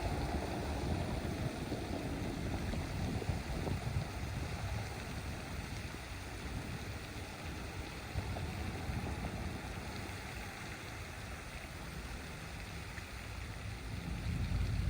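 Wind buffeting the microphone: a steady rushing noise with gusty low rumbling and no distinct events.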